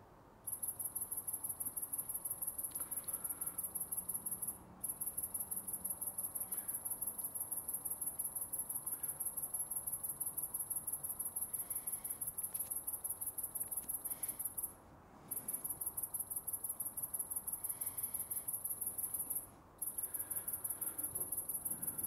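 Male great green bush cricket stridulating, singing to attract a female: a high-pitched, rapidly pulsing buzz that runs on in long stretches, broken by brief pauses about five, fifteen and twenty seconds in.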